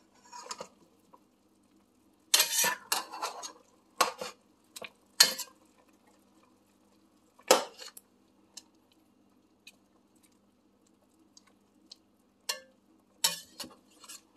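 Metal utensils clanking and scraping against a stainless steel pot as pieces of chicken are turned over in it: irregular sharp clatters a second or several seconds apart, over a faint steady hum.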